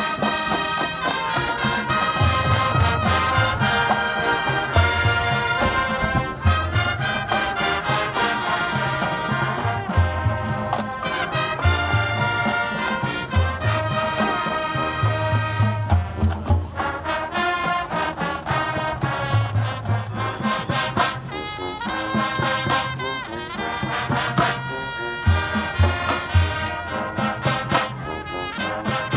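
Marching band playing, led by a brass section of trumpets and trombones, with heavy low notes landing every second or two underneath.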